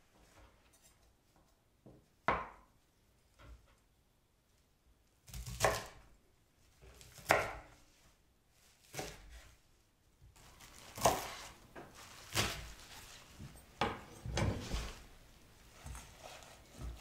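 Chef's knife cutting through a bunch of green plant stems onto a wooden cutting board: a slow series of single crisp cuts, one every second or two.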